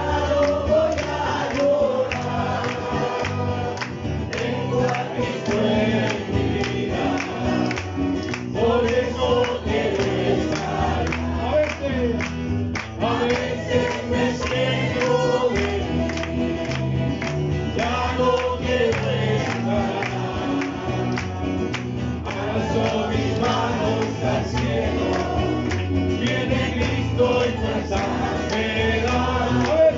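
Congregation singing a Pentecostal chorus (corito) together, led by male voices, with an acoustic guitar strummed along.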